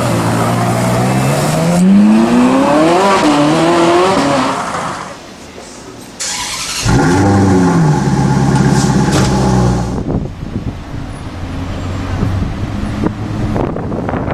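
A Ferrari 458 Italia's V8 revving, its pitch climbing for a few seconds and then falling away. A Maserati GranTurismo's V8 is then blipped suddenly and held at raised revs. After that comes a quieter stretch of street and engine noise.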